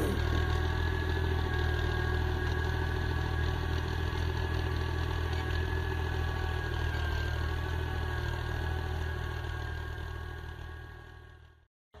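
Diesel tractor engine running steadily under load as it pulls a plough through dry soil, a deep even drone with a steady high whine above it. The sound fades away near the end.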